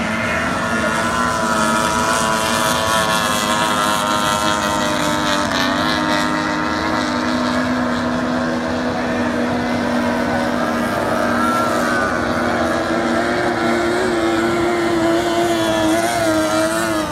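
Several 50 hp outboard motors on racing tunnel hull boats running at speed. Their high engine notes overlap and waver in pitch.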